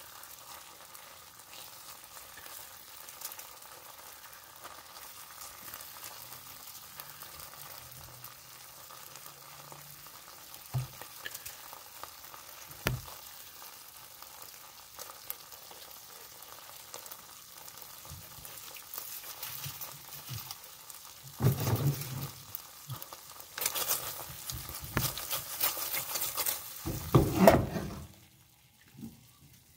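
Food sizzling and bubbling steadily in a lidded pan on the stove, with a couple of short knocks. Louder knocks and handling noise come in bursts over the last several seconds.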